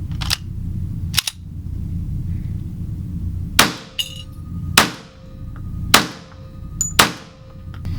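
Four shots from a Tanfoglio Witness pistol fitted with its .22 LR conversion kit, about one a second, each with a short ringing tail, preceded by two sharp clicks.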